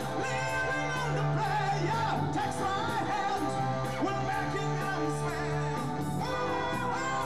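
Live rock band with keyboards and electric guitar playing a song, with a man singing lead into a microphone; a sustained low note holds under the melody.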